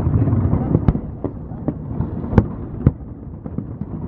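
Aerial fireworks display: a rapid, irregular run of sharp bangs and cracks over a continuous low rumble, the loudest bang about two and a half seconds in.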